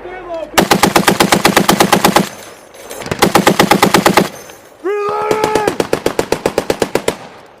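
Browning M2 .50-calibre heavy machine gun firing three bursts of rapid automatic fire, about ten shots a second. The third burst is the longest and fades out near the end.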